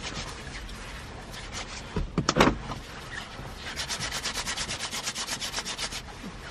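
Hands rubbing briskly together, a fast, even swishing of skin on skin at about nine strokes a second in the second half. There are a few sharp knocks about two seconds in.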